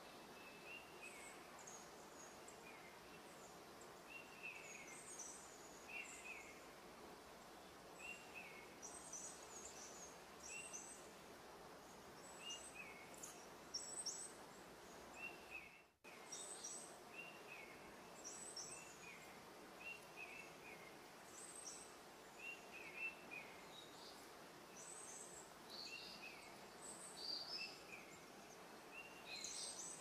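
Woodland birds calling: short chirps repeated every second or two, over a faint steady hiss of ambient noise. The sound drops out for a moment about halfway through.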